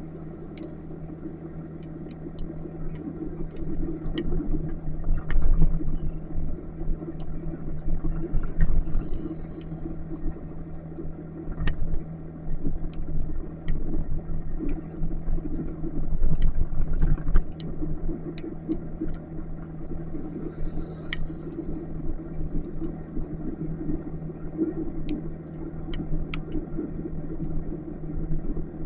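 Motorcycle engine running steadily while riding in heavy rain, with rumbling wind buffeting and sharp ticks of rain scattered throughout.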